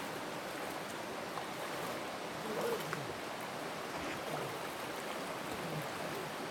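Running water of a stream, a steady rushing hiss.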